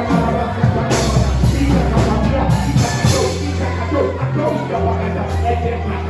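Live worship band playing, with sustained bass notes and cymbal crashes, and voices singing and praising over it.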